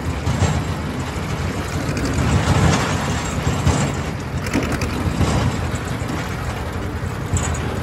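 Tractor engine running steadily as the tractor drives along, heard from on board.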